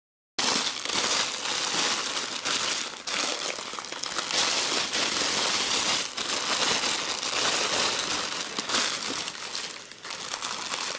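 Clear plastic packaging crinkling continuously as hands open a bag of photo booth props and pull out the smaller plastic-wrapped packets inside.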